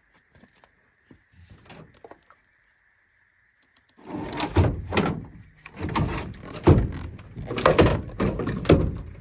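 Faint scattered clicks, then, about four seconds in, a run of loud, heavy thumps and knocks, about six strong hits over five seconds.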